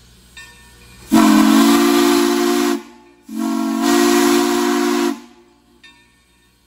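Texas State Railroad steam locomotive No. 30's whistle sounding two long, loud blasts of nearly two seconds each, separated by a short gap. Each blast is a steady chord of several tones.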